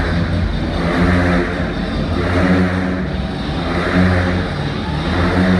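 Motorcycles revving as they ride loops inside a steel-mesh globe-of-death cage, their engine note swelling and falling about every second and a half as they circle.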